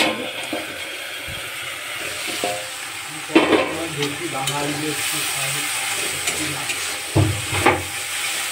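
Dried shrimp frying in onion-tomato masala in a karahi, sizzling steadily while a metal spatula stirs and scrapes the pan. There are louder metal clatters about three seconds in and again near the end.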